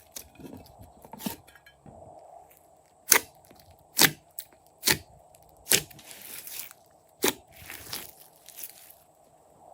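Slime being squeezed and worked by hand, giving a string of sharp, crunchy pops and crackles, about six loud snaps a second or so apart with softer crackling between.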